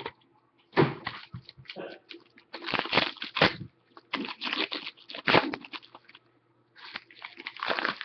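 A sealed hockey card box and its wrapping being torn open by hand, with crinkling and tearing in irregular bursts.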